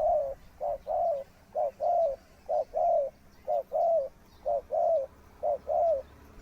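A dove cooing, repeating a two-part phrase of a short note followed by a longer arched coo, about once a second.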